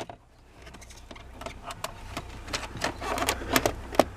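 Irregular clicks and knocks of a UAZ Patriot's plastic dashboard panel being handled and pulled loose, over a low steady hum.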